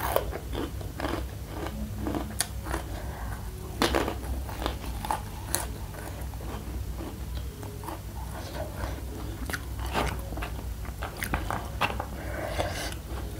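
Close-up crunching and chewing of chili-coated crunchy macaroni snack pieces, with irregular sharp crunches as they are bitten.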